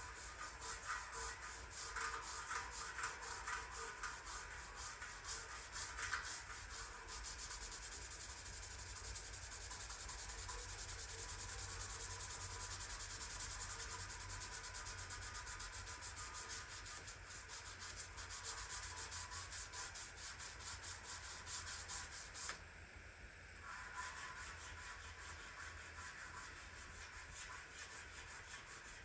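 Steady hand scrubbing on the body of a 1940s wringer washer, rubbing back and forth as it is cleaned, with a short pause about three quarters of the way through.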